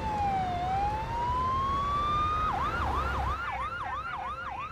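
Police car siren wailing in a slow falling-then-rising sweep, then switching a little past halfway to a rapid yelp of about three sweeps a second.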